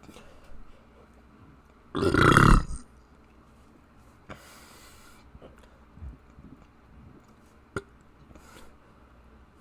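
A person burping once, loud and low, about two seconds in and lasting under a second, followed by a fainter breathy sound.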